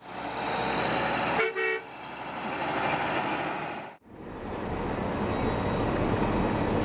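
Steady vehicle driving and road noise, with one short two-note horn toot about one and a half seconds in. The sound drops out for a moment about four seconds in, then the steady noise of a moving truck cab carries on.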